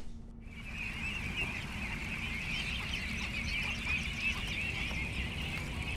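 A large flock of ducks on the water calling all at once: a dense, continuous chatter of many overlapping calls that starts about half a second in.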